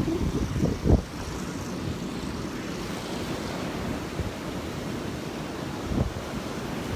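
Gulf surf breaking steadily, with wind buffeting the microphone in gusts near the start, about a second in, and again around six seconds.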